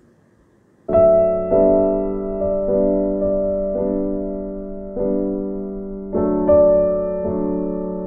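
Background piano music: soft piano notes and chords struck about once a second, each ringing and slowly fading, starting about a second in after a brief near-silence.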